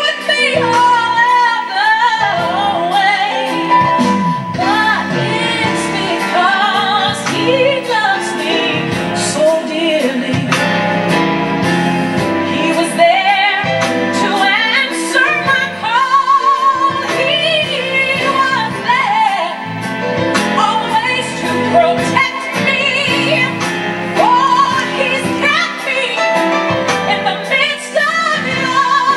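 Gospel song with a woman singing lead, her voice wavering in a strong vibrato over the accompaniment.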